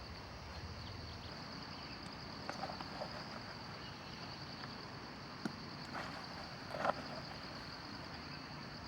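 Steady high-pitched insect chorus, a fast pulsing trill like crickets or cicadas, with a few short knocks, the loudest about seven seconds in.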